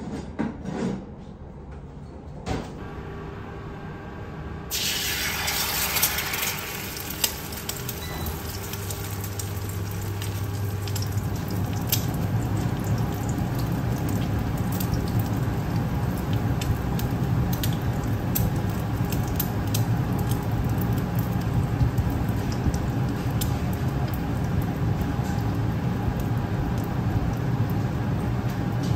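An egg frying in oil in a Lodge cast iron mini wok: a loud sizzle starts suddenly about five seconds in and settles into a steady sizzle with scattered pops and crackles. A few clicks are heard in the first couple of seconds.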